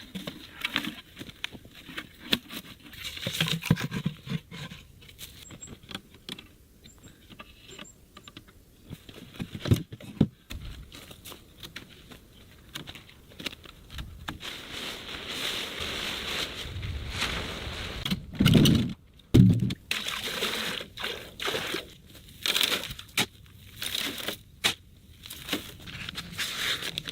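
Hand-tool building work: irregular knocks, scrapes and rustles, with a louder pair of thumps about two-thirds of the way through.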